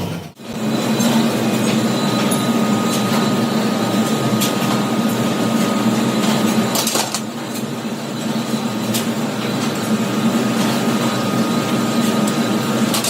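Steady industrial machinery hum in a spring factory, with a few sharp metallic clicks and knocks.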